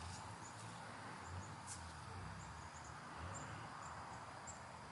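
Faint outdoor garden ambience: a steady soft hiss with a series of short, high chirps every half second or so, and one soft click about a second and a half in.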